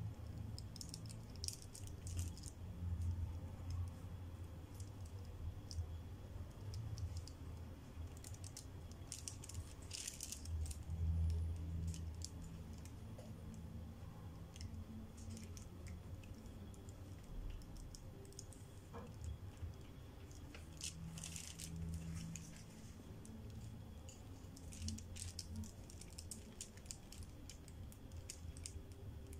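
Pencil scratching on paper in short, irregular strokes, going over the lines of a drawing on tracing paper, with small clicks and taps between strokes over a low hum.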